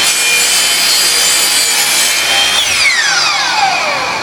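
Electric miter saw cutting through a wooden board with its blade at full speed, then the trigger is let go about two and a half seconds in and the motor winds down in a falling whine as the blade spins to a stop.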